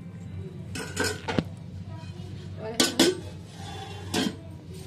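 Steel utensils clattering on an aluminium cooking pot: a slotted steel spoon and a steel plate lid knock and clink against the pot in a few separate strikes, about a second in, around three seconds in and again near the end, over a steady low hum.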